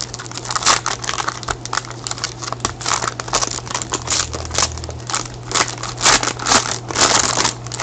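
Plastic card-pack wrapping crinkling and crackling as gloved hands handle and open it, in quick irregular rustles.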